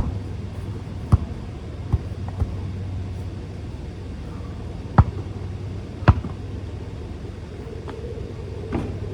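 A basketball bouncing: about seven separate sharp thuds at irregular intervals, the loudest about five and six seconds in, over a steady low rumble.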